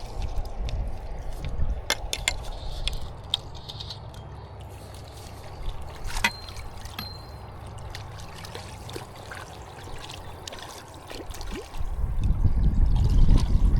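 River water trickling and lapping around a drifting boat, with a few light knocks. A louder low rumble comes in near the end.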